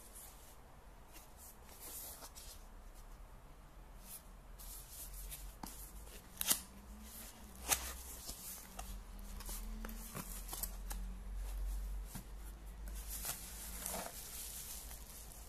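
Cardboard packaging being handled: a box sleeve rustling and scraping as the inner tray slides out, with scattered soft clicks and a couple of sharper snaps midway, then plastic bubble wrap crinkling near the end.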